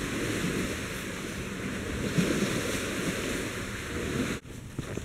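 Steady rushing wind noise, with uneven low buffeting on the microphone. It cuts off suddenly near the end.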